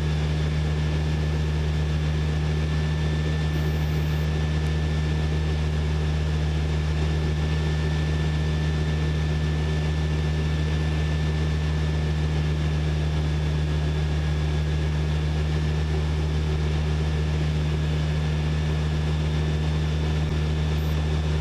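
Single-engine light aircraft's piston engine and propeller heard from inside the cockpit, running steadily at about 2,300 rpm in flight with an even, unchanging hum.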